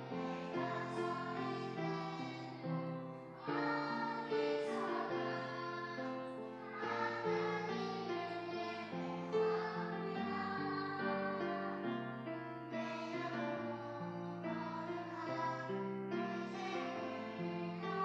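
A group of children singing a Korean worship song in unison, accompanied by sustained piano or keyboard chords.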